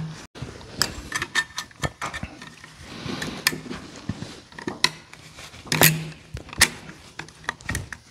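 Steel snap ring clicking and scraping against the steel PTO clutch drum as it is worked by hand into its groove: a run of irregular sharp metallic clicks, the loudest about six seconds in.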